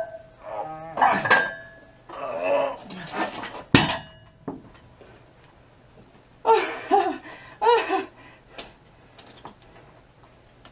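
Metal clanks and clinks of barbell and weight plates, with one sharp loud clank about four seconds in, mixed with a man's wordless vocal sounds after a failed squat.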